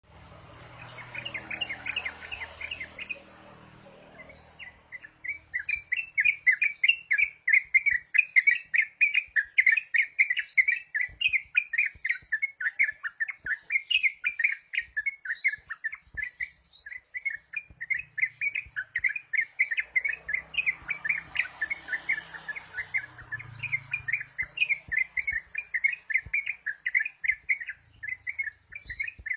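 Yellow-vented bulbul (trucukan) singing a fast, unbroken run of short chirping notes, several a second, in the rapid 'ropel' style. The song starts in earnest about four seconds in.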